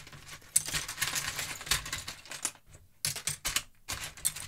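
Loose Lego bricks and small plastic toy figures clattering against each other in a plastic tub as hands rummage through them. A dense run of clicks for about two seconds, then two shorter bursts of clicks near the end.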